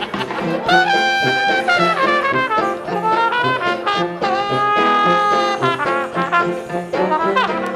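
Background music: jazzy brass band playing long held horn notes that bend and slide in pitch, over a steady stepping bass line.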